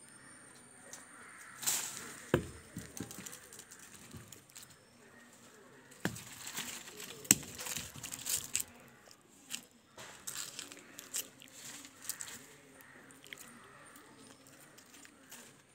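A long pole poking into the branches of a mango tree to pick mangoes: leaves rustling and twigs cracking, with scattered sharp knocks. The loudest knocks come about two and a half and seven seconds in.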